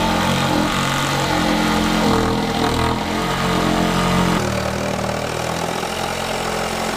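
Cordless power tools working plywood: a motor whirring with its speed stepping up and down, then changing abruptly to a steadier run about four seconds in.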